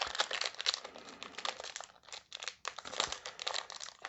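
Crinkly plastic trading-card packaging being handled, a rapid crackling rustle with a brief pause about two seconds in.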